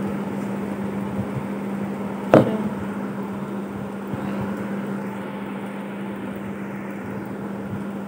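Steady machine hum of a fan or air conditioner in the room, with one sharp knock a little over two seconds in as a small plastic paint jar is set down on the table.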